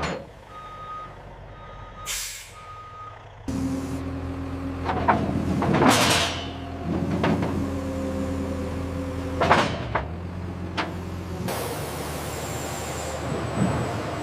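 Truck reversing alarm beeping three times, then the truck's engine running steadily with several sharp air-brake hisses.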